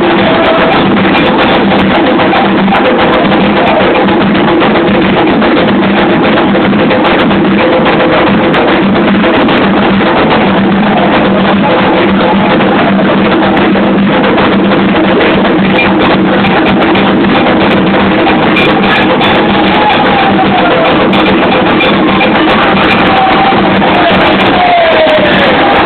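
Candomblé ritual drumming: atabaque hand drums beating a steady, loud rhythm, with voices singing a chant over them, their melody sliding about in the last few seconds.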